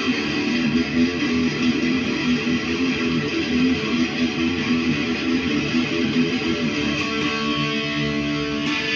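Jay Turser JT-50 Custom SG electric guitar played through an amplifier in a continuous riff, cutting off right at the end.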